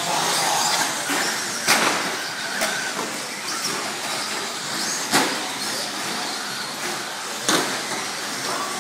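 Electric 1/10-scale short course RC trucks racing on a clay track: a steady hiss and whine of motors and tyres, broken by four sharp knocks.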